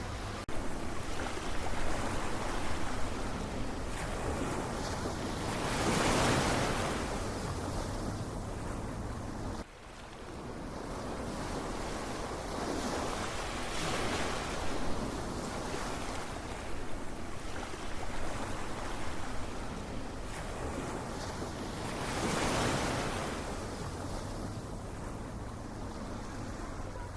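Ocean waves washing in continuously, with two larger waves building and breaking about six and twenty-two seconds in. The sound drops out abruptly for a moment just before ten seconds in.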